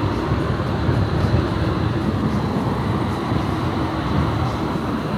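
Steady low rumble of city street traffic, vehicles running past.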